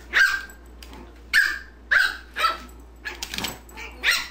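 Small dog barking in sharp, short yaps, about five or six in four seconds, while playing with another dog.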